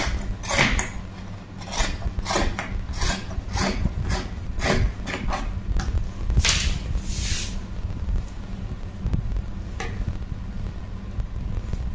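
Dressmaking shears snipping through printed fabric in a quick run of cuts, about two a second, then a longer rustle of the fabric being handled about six seconds in, and a single snip near the end.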